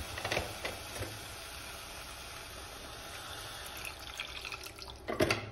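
Water poured steadily from a bottle into a steel kadai of cooked onion-tomato masala. A few sharp clatters near the end.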